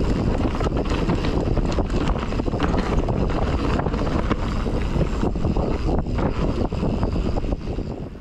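Wind buffeting a GoPro's microphone while a mountain bike rolls over rough dirt trail: a steady rumble and hiss with many small clicks and rattles from the bike. The noise drops off abruptly right at the end.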